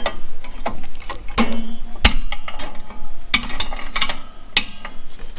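Drum brake return spring being worked up over the top of the brake shoes with a brake spring tool: irregular metal clicks, clinks and scrapes of the tool, coil spring and shoes, some with a brief metallic ring.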